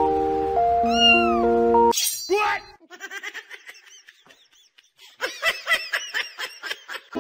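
Music plays for about two seconds and then cuts off. A cat then meows: one loud cry, followed by a string of short, quick meows that come faster near the end.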